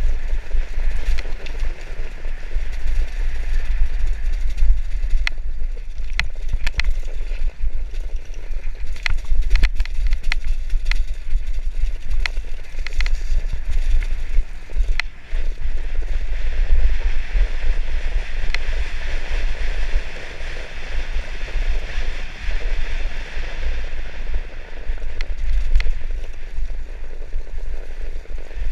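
Mountain bike ridden fast downhill on a dirt trail, heard from a GoPro on the rider: a constant rumble of wind on the microphone under the hiss of tyres on dirt, with frequent sharp rattles and knocks from the bike over bumps, thickest in the first half.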